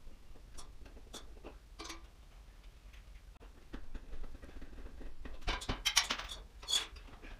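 Light clicks and small metallic clinks of a hanging light fixture's hardware being handled at the ceiling box: a few sparse ticks at first, then a denser run of louder clinks from about five seconds in.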